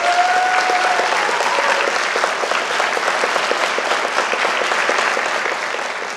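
Audience applauding: dense, steady clapping that begins to tail off near the end.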